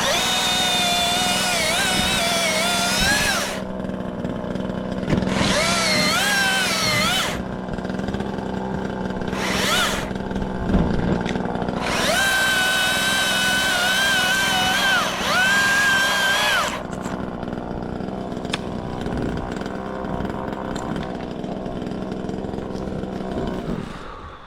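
Milwaukee top-handle battery chainsaw revving and cutting in four bursts, its whine dipping in pitch as the chain bites into wood and rising again as it frees, and cutting out between cuts. A steady low hum runs underneath.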